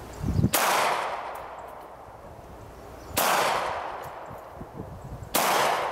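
Three pistol shots, a little over two seconds apart, each sharp crack followed by a long fading echo.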